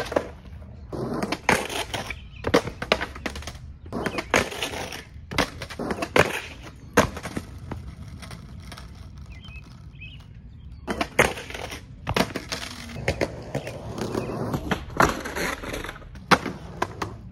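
Skateboard rolling on rough concrete, with sharp pops and clacks as the board snaps, lands and slaps the ground, in several separate attempts at a trick up a concrete ledge. One attempt ends with the board flipping away and rolling off on its own.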